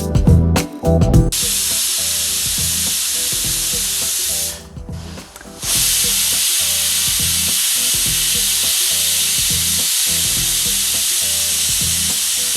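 A Prestige pressure cooker letting off steam through its whistle valve: two long, steady hisses with a short break between them. These are the whistles that mark the rice as cooked. Music plays at the start and faintly underneath.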